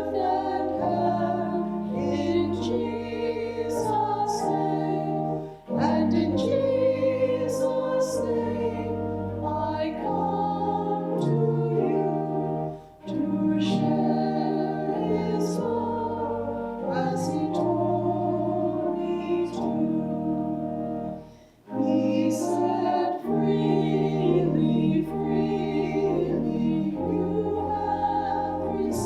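Choir singing a hymn in long held phrases, with short breaths between the lines.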